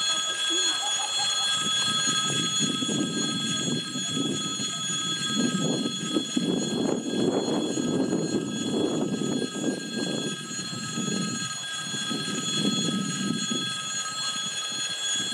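M62-series diesel locomotive's two-stroke V12 diesel engine rumbling as the locomotive approaches slowly with a passenger coach. The rumble swells to its loudest in the middle and eases toward the end.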